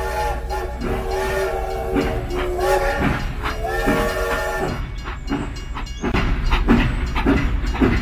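Battery-powered toy steam locomotive running on plastic track, its electronic sound effects playing: four short whistle toots in the first half, then a rhythmic chuffing of about three beats a second. A steady low motor hum runs underneath.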